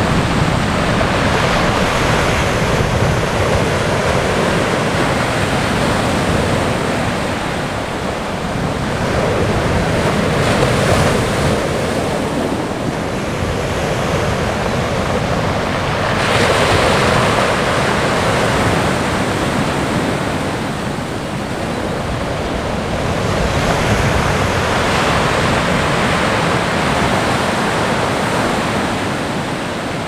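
Pacific Ocean surf breaking on the shore: a continuous rushing wash that swells four times as waves come in and break.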